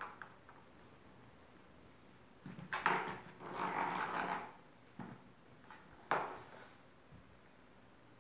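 A kitten scrabbling and rolling in a plastic basin: a sharp knock, about a second of scratchy scrabbling, then another sharp knock a couple of seconds later.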